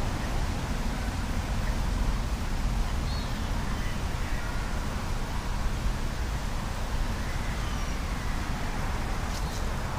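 Steady low rumble of wind buffeting the microphone, with faint bird chirps above it and a few sharp clicks near the end.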